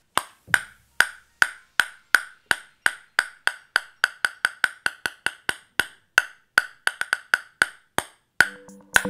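A table tennis ball bouncing repeatedly on the bare wooden face of a Sanwei Froster PBO carbon blade (koto, PBO carbon, ayous, kiri core): a crisp tock with a short ring at each hit, about two to three a second, quickening in places, with louder hits near the end.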